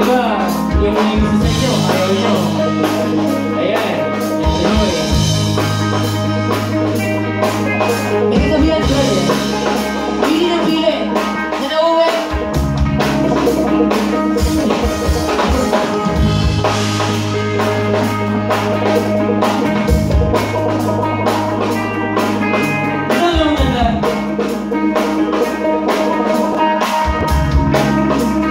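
Live rock band playing: a male singer over electric guitars, bass guitar and a drum kit keeping a steady beat.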